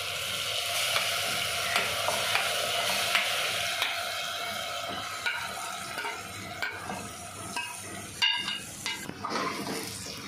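Marinated chicken and its masala sliding off a plate into hot oil and browned onions, sizzling hard at first and dying down over the next few seconds. A metal spoon scrapes the plate and clicks against it and the pot in the second half.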